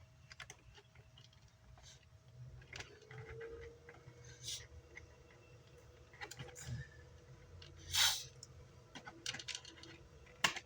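Scattered light clicks and taps of small tools and wire being handled during a subwoofer repair, with a short scrape about eight seconds in and a sharp click near the end.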